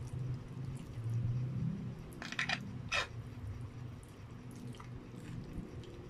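A person chewing a mouthful of spaghetti. Between two and three seconds in comes a quick run of sharp clicks and then one more, the fork knocking against the metal bowl.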